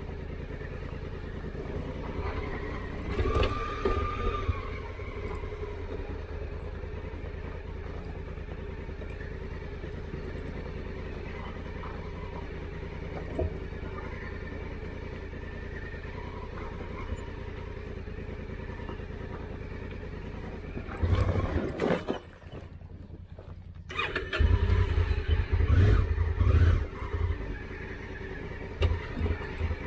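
Engine of a Honda Africa Twin CRF1000L (a parallel twin) running steadily, heard from on the bike as it rolls down a steep, rocky dirt track. A short whine comes in about three seconds in. Near the end, heavy low rumbling and knocks come in bursts, and the engine sound briefly drops away just before them.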